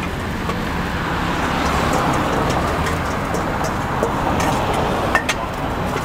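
Road traffic passing close by, a steady hum of cars and motorbikes that swells a little about two seconds in. A few sharp clicks near the end.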